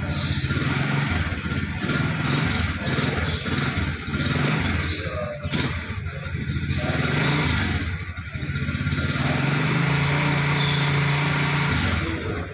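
Motorcycle engine running, rising and falling in level several times.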